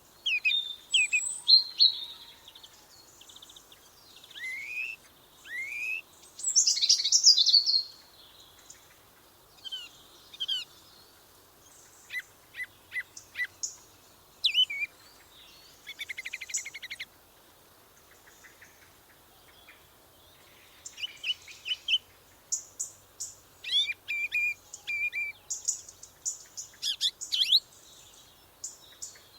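Several songbirds calling and singing: short chirps, rising whistled notes and fast trills, with brief quiet gaps between phrases.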